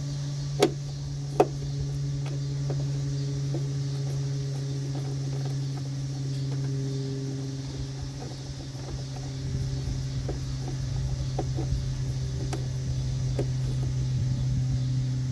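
A steady low hum with a few overtones runs throughout. Over it come two sharp clicks about half a second and a second and a half in, then faint scattered ticks of a small socket wrench working a stubborn 7 mm screw.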